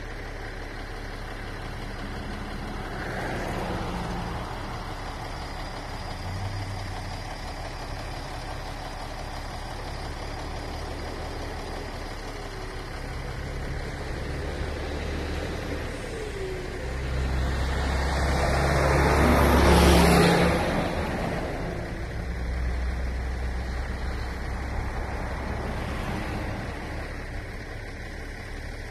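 Road traffic: motor vehicles passing close by over a low steady engine hum, the loudest one swelling up and fading away about twenty seconds in.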